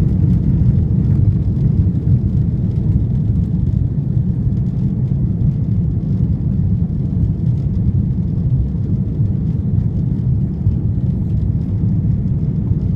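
Airbus A330 during takeoff: the jet engines and airflow make a steady, loud, low rumble with no breaks or changes.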